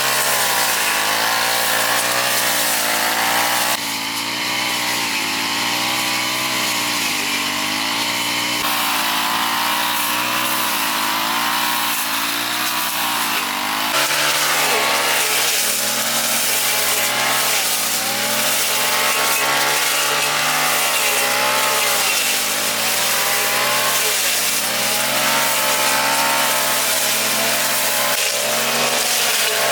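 Lawn mower engine running steadily under load, its pitch rising and falling continuously as it cuts grass. The sound changes abruptly a few times.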